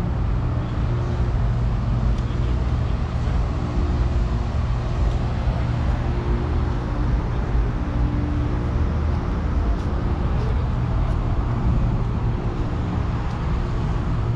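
An engine idling steadily: a low, even rumble with a steady hum.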